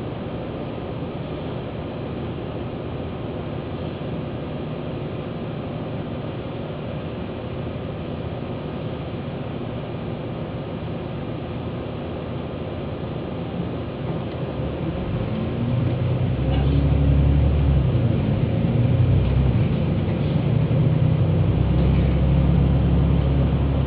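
Vehicle cabin noise from a road vehicle: a steady drone while it waits at a stop, then about 15 s in the engine or drive gets louder, with a rising pitch, as it pulls away and picks up speed.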